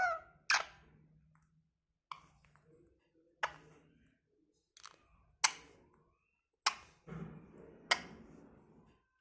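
A parrot making a series of sharp clicks, about seven at uneven intervals, each short with a brief fade.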